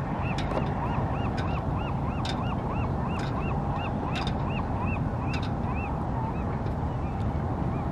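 A bird calling in a steady series of short, high, rising-and-falling notes, about three a second, over a constant low rumble.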